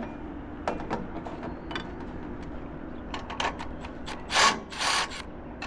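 Tools being handled during work: scattered clicks and knocks, then two short scraping rubs near the end.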